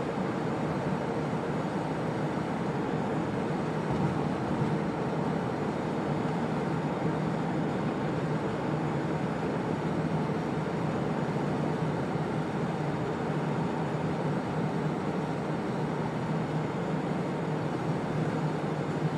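Steady road and tyre noise of a car driving through a highway tunnel, heard from inside the car's cabin.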